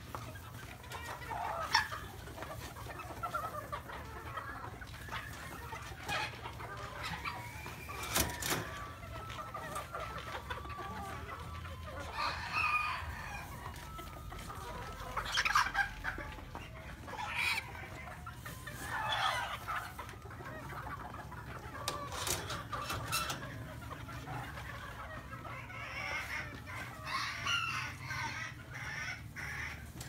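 Several chickens clucking, with roosters crowing now and then, and a few sharp knocks among the calls over a steady low hum.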